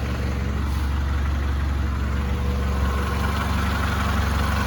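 A 1996 Honda Accord engine idling steadily after reassembly, warming up toward operating temperature.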